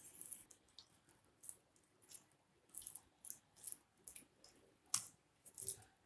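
Faint, irregular wet clicks and squelches of fingers rubbing turmeric and salt into raw fish steaks on a steel plate, with a sharper click about five seconds in.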